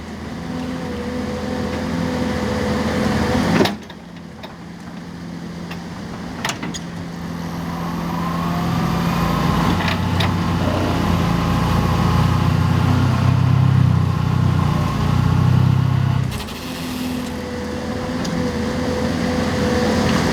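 Excavator working a vibro ripper attachment: a steady engine and hydraulic drone that grows heavier and louder through the middle, with abrupt changes about 4, 6.5 and 16 seconds in.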